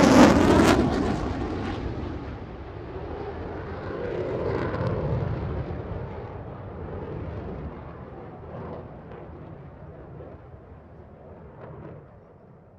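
Airplane flying past. A loud rushing roar peaks at the start and swells once more about four to five seconds in, then fades away into a low rumble.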